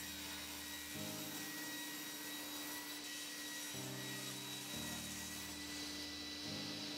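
Background music of sustained chords changing every second or two, over a table saw running and cutting hardwood.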